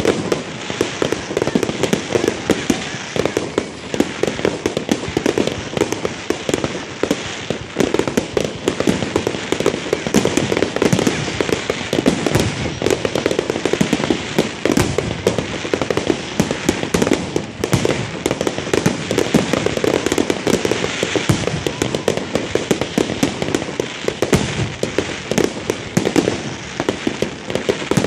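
Aerial fireworks display: many shells bursting in a rapid, unbroken string of bangs mixed with crackling.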